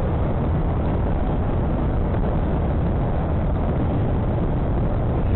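Steady rumble of a motorcycle on the move, with wind buffeting the rider's camera microphone. The noise is heavy in the low end and holds even throughout.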